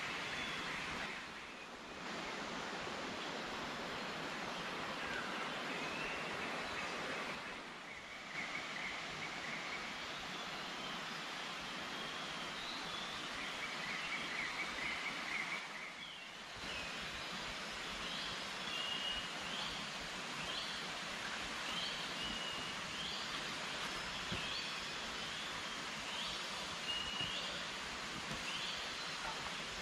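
Forest ambience: a steady hiss of background noise with birds calling, short chirps that come in a repeating series about once a second through the second half.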